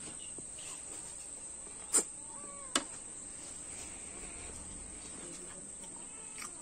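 Steady high-pitched trilling of insects in the surrounding trees. Two sharp clicks stand out, one about two seconds in and another under a second later.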